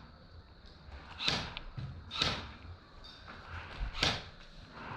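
Three single shots from an airsoft gun, each a short sharp crack: two about a second apart, then a third nearly two seconds later.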